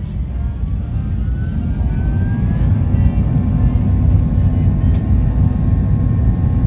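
Jet airliner engines heard from inside the cabin during takeoff: a loud, low rumble that grows steadily louder, with a faint rising whine early on.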